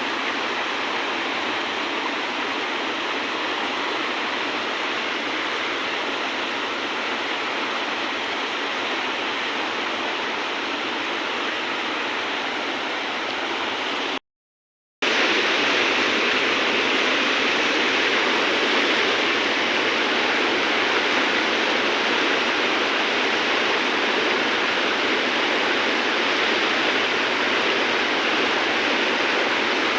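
River water rushing steadily. It cuts out briefly about halfway through, then returns a little louder.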